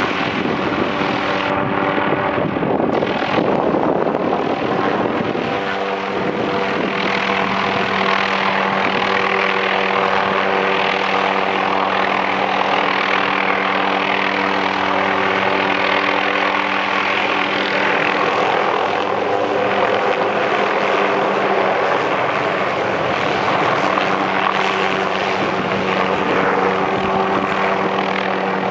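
Helicopter in flight: a steady, loud rotor and engine drone with a steady hum under it.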